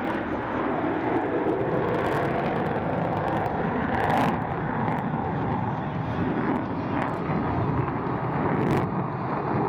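Jet noise from an F-22 Raptor's twin Pratt & Whitney F119 turbofan engines as the fighter maneuvers overhead: a loud, steady, dense rumble with a few brief crackles.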